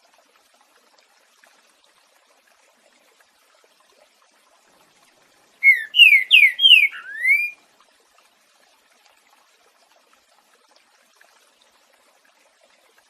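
Green-winged saltator (trinca-ferro) singing one short phrase of about five loud, clear whistled notes in the 'boiadeiro' song type, about six seconds in. Faint running water trickles steadily beneath.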